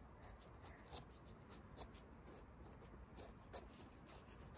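Faint scraping with a few light ticks of a small knife paring soil off the stem base of a freshly picked bolete mushroom.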